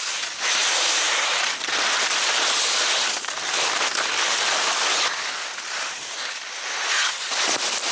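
Skis scraping over hard snow while skiing: a continuous rasping hiss with many small clicks from the edges.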